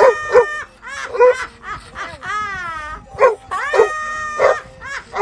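A dog giving a string of short, high yowling calls, with one long wavering howl about two seconds in.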